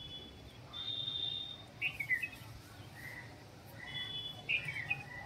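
Birds calling: a held whistled note, then several short chirps and brief notes.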